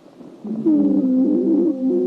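Stethoscope recording of lung sounds in chronic obstructive pulmonary disease. After a faint start, a loud, low-pitched musical wheeze with several wavering pitches sets in about half a second in and holds: a sign of narrowed, obstructed airways.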